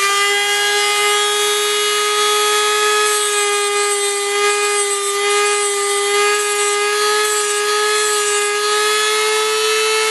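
Eastwood tungsten grinder's motor running at steady speed with a high whine, its diamond wheel grinding a 1/16 tungsten electrode, with a faint high hiss from about three to eight seconds in.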